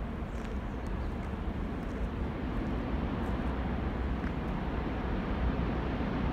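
Low, steady rumble of an approaching diesel freight train, growing slowly louder as it nears the bridge.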